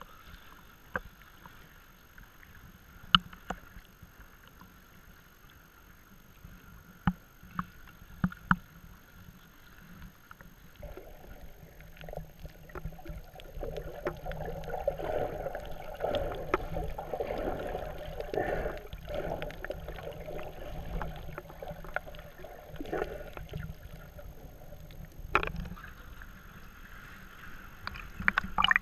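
Muffled water sloshing and lapping against an action camera's waterproof housing, with scattered sharp taps and clicks. About eleven seconds in, once the camera is under water, it becomes a louder, fuller underwater rush and gurgle that eases off again a few seconds before the end.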